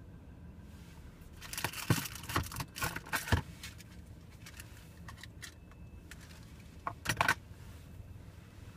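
Steady low hum of idling truck engines. Over it come two bursts of close jangling and rattling, one about a second and a half in that lasts about two seconds, and a shorter one near the end.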